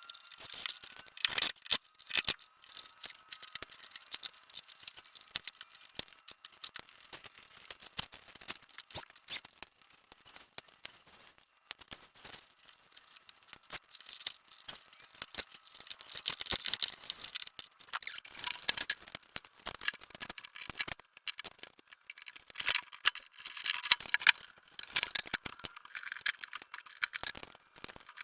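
Irregular clicks, small rattles and scrapes of hands and hand tools working electrical wires at a switch box.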